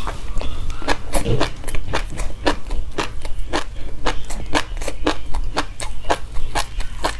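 Close-miked chewing of a mouthful of hulled white sesame seeds: a steady, even run of crisp crunches, about three a second.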